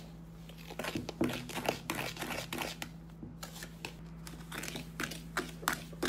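Damp baking soda and citric acid powder being stirred and pressed in a plastic mixing bowl: a run of irregular gritty scrapes and crunches.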